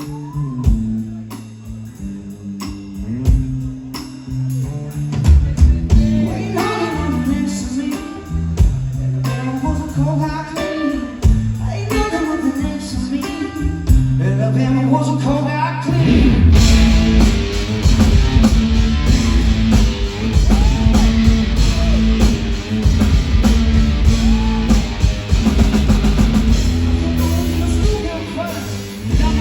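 Live blues-rock from a guitar-and-drums duo: an electric guitar riff over drums, which swells about halfway through into a louder, denser full-band section with crashing drums.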